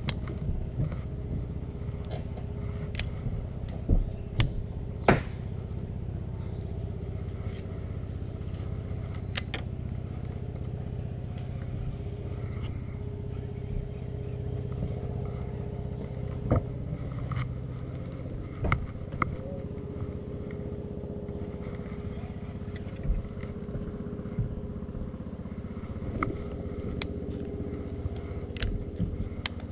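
Small boat engine running steadily with a low, even hum, with a few sharp knocks and clicks scattered through it.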